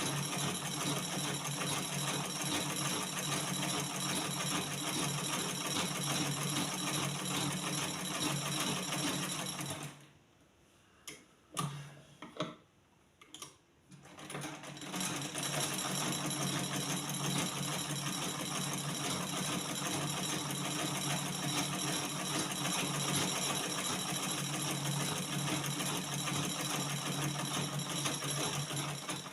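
Manual treadle-pedalled Butterfly black-head sewing machine stitching steadily. It stops about ten seconds in, leaving a few light clicks and knocks, then starts again and runs on until the end.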